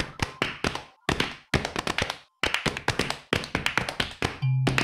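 A quick, uneven run of sharp percussive taps and knocks, several a second, broken by brief pauses; a low held bass note comes in near the end.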